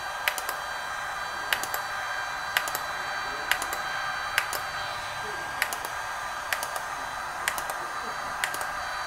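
Braun Silk-expert Pro 5 IPL hair-removal device firing single flash pulses, a sharp double click about once a second. Under the clicks its internal cooling fan runs with a steady whir and a thin high whine.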